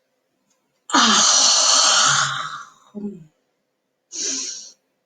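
A deliberate, exaggerated yawn: a long, loud, breathy yawn with some voice in it starting about a second in, then a short voiced catch and another breath near the end.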